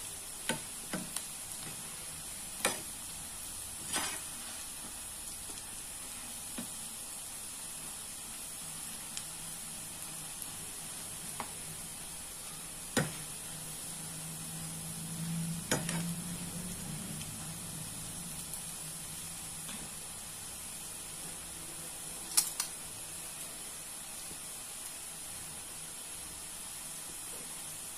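Onion pakodi deep-frying in hot oil in a nonstick frying pan: a steady sizzle, with a steel spoon stirring through the fritters and knocking sharply against the pan several times, loudest about 22 seconds in.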